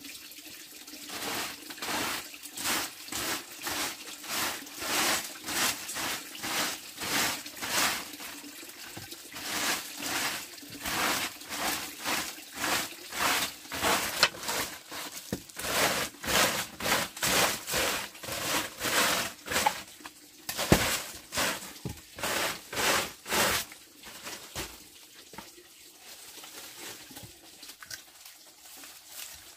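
A broom sweeping a packed-earth floor: quick, even scratching strokes, a little under two a second, that stop about three quarters of the way through. Quieter rustling of straw and wood follows.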